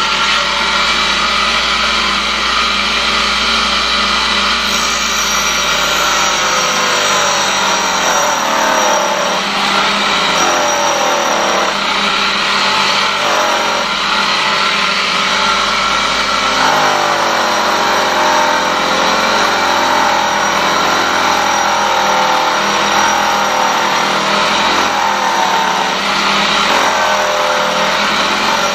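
Home-built tool and cutter grinder running, its cup grinding wheel grinding a cutter: a steady motor whine over a grinding hiss, the pitch wavering and dipping again and again as the wheel takes the cut. The motor is only just managing the load.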